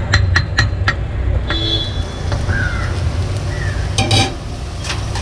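Steel spatula tapping and scraping on a hot dosa griddle as a masala topping is spread, with five quick sharp taps in the first second and a louder clatter about four seconds in, over a steady low hum.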